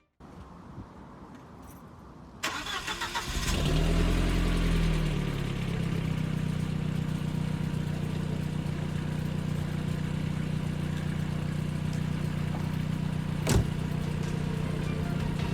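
Audi 1.8T turbocharged four-cylinder engine, running through a catless test-pipe downpipe, is started: the starter cranks for about a second, the engine catches with a brief rev flare, then settles into a steady idle. A single sharp knock near the end.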